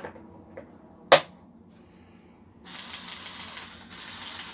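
Hard plastic clicks from handling a small cordless drill and its plastic accessory case, with one sharp, loud knock about a second in. Near the end comes about two seconds of steady hiss-like noise.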